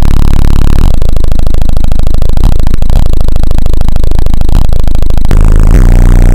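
Two Power Acoustik 15-inch subwoofers in a ported box tuned to about 30 Hz, pushed with about 700 W, playing bass-heavy electronic music at full volume so the recording is overloaded and distorted. A CD held against the vibrating box buzzes along with the bass. The bass notes change near the end.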